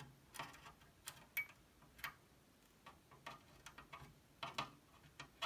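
Faint, irregular sharp clicks of small side cutters snipping the leads of a newly fitted transistor, and of the tool knocking against a circuit board.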